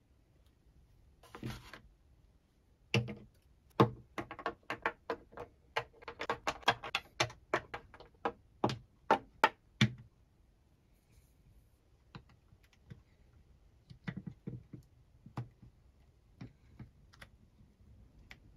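Hard painted figure parts being set down on a wooden tabletop and fitted together: a quick run of light clicks and taps, several a second, then sparser single clicks.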